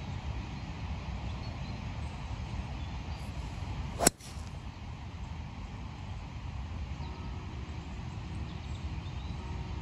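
A golf club strikes the ball once: a single sharp crack about four seconds in, over a steady low rumble.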